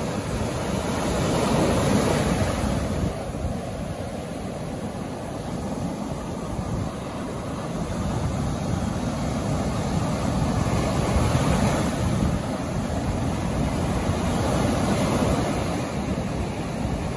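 Ocean surf breaking and washing up a sandy beach, a steady rush of water that swells louder several times as waves break.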